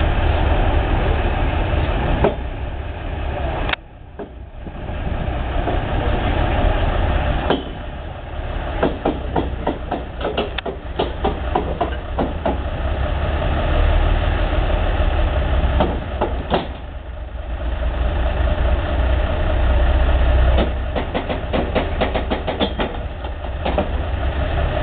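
A heavy engine idling steadily, with scattered clicks and knocks over it.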